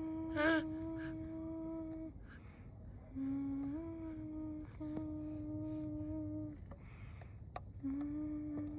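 Humming: long, steady held notes with a few small steps up in pitch and short breaks between them.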